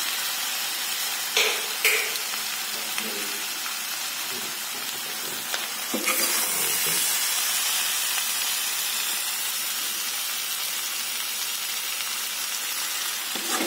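Pork, potatoes and daikon greens sizzling steadily in a hot wok, with a few knocks and scrapes of a metal spatula stirring them.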